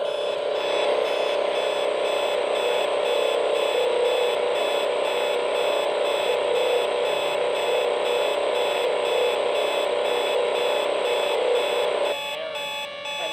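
Alarm clock radio tuned to AM putting out a strange steady electronic drone and buzz with a regular pulse about twice a second: interference picked up on the AM band. Near the end the buzzing part cuts off suddenly, leaving steady tones.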